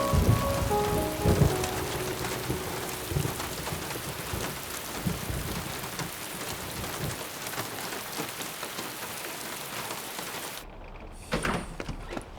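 Heavy rain pouring steadily, with thunder booming several times, loudest in the first couple of seconds. The downpour cuts off suddenly near the end, followed by a couple of short sharp sounds.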